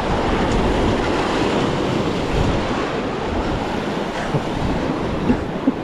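Wind buffeting the microphone over the steady wash of sea waves, a dense rumbling noise that rises and falls with the gusts.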